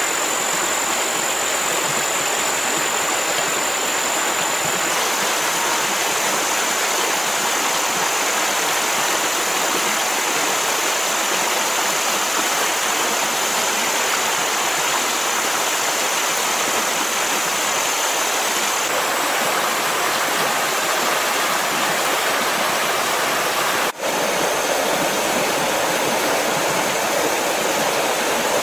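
Stream water rushing over rocks: a dense, steady hiss with a thin high tone over it, dipping briefly about 24 seconds in.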